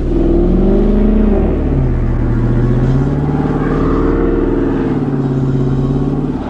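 Dodge Charger Scat Pack's 6.4-litre HEMI V8 revved hard and held at high revs, its pitch wavering up and down, while the car is stuck in snow. The revs drop off suddenly at the end.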